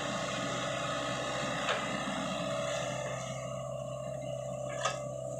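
Sany SY55C mini excavator's diesel engine running with a steady hydraulic whine as the arm digs, with two short knocks from the bucket, one about a third of the way in and one near the end.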